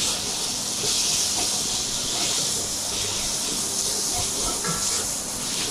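Diced pancetta and bacon sizzling steadily in hot butter and onions in an enamelled cast iron pot, stirred with a wooden spoon.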